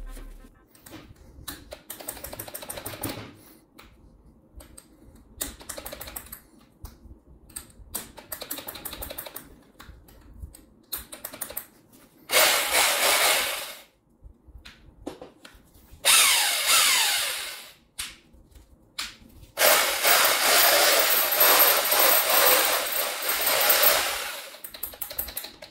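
Bosch SDS rotary hammer drill run in short bursts: a few faint brief runs, then three louder runs of about one and a half, one and a half and five seconds, the second winding down in pitch as it stops.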